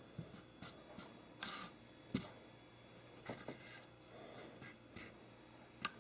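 Faint, scattered taps and scrapes as plastic miniatures on square plastic bases are picked up and set down on a wooden tabletop, with a short rustle about one and a half seconds in and a sharper tap just after two seconds.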